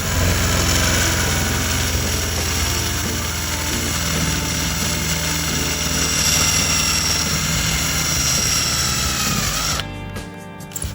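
An electric power tool running steadily under load with a high whine, its pitch sagging slightly just before it stops near the end.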